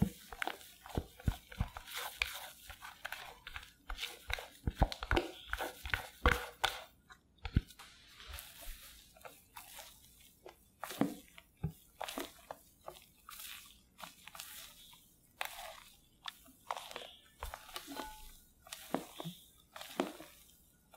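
A silicone spatula folding egg-yolk batter into whipped egg-white meringue in a glass bowl: irregular wet crackles and soft scrapes with each stroke.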